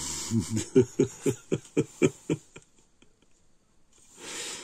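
A man laughing: a run of short voiced chuckles, about four a second, that trails off after about two and a half seconds. A brief soft rushing noise follows near the end.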